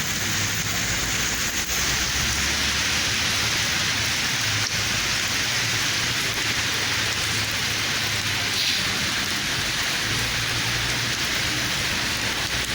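Heavy rain falling steadily, a dense even hiss, with a low rumble that comes and goes underneath.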